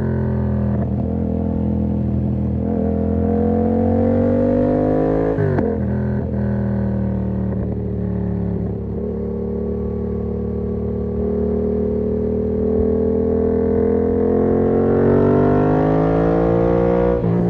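Yamaha MT-07's parallel-twin engine through an SC-Project exhaust with the dB-killer fitted, riding under load. The pitch breaks sharply about five and a half seconds in and sags slowly, then climbs steadily and breaks again at a gear change near the end.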